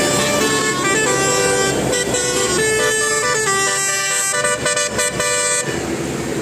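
A bus's Basuri 'telolet' multi-tone musical horn playing a quick tune of stepped notes, then cutting off abruptly near the end.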